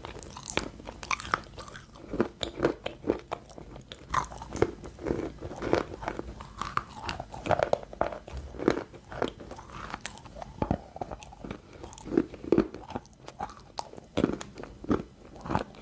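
Close-up crunching of crunchy balls: a run of irregular crisp cracks and crackles, several a second, as they are broken up.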